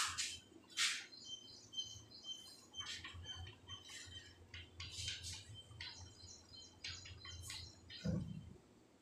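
Chalk scraping and tapping on a blackboard in a series of short, quick strokes, with faint high chirps between them and a dull thump near the end.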